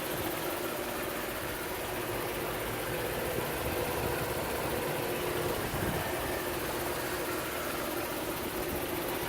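Lexus LS 430's 4.3-litre V8 running steadily at idle, with a steady hum over the idle that the owner finds odd.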